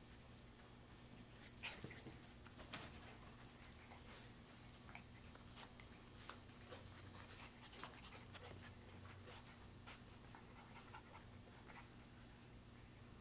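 Faint sounds of puppies playing together: claws tapping and scuffling on a hard floor and a fabric dog bed, with a few soft puppy vocal sounds, over a steady low hum. A few louder taps come about two seconds in.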